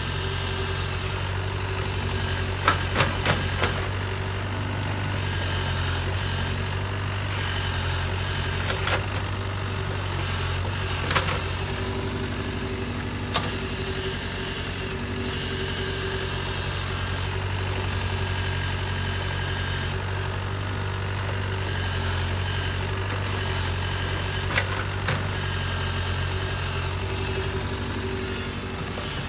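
Compact crawler excavator's diesel engine running steadily as it digs and lifts wet mud. Several sharp knocks from the machine are heard over it: a quick run of four about three seconds in, then single ones now and then.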